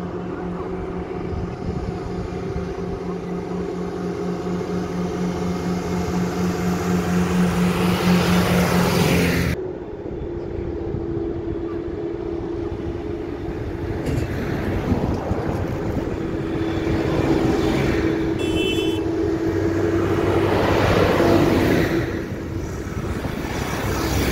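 Farm tractors' diesel engines running along a road, one after another, each growing louder as it approaches and passes. The first cuts off abruptly about ten seconds in. A second, a blue New Holland tractor, then builds up and passes close by near the end.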